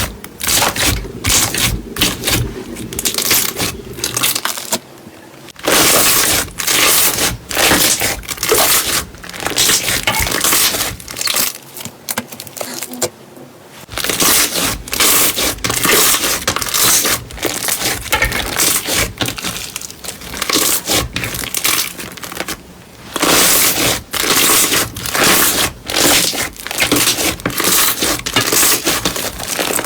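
Crunchy slime being squeezed and pressed by hand: dense runs of crackling and crunching, broken by two short pauses, about five seconds in and again around twelve to fourteen seconds in.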